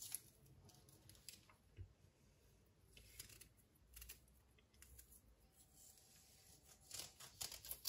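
Faint clicks and scrapes of fresh ginger root being handled and cut, with a quick run of several sharp clicks near the end.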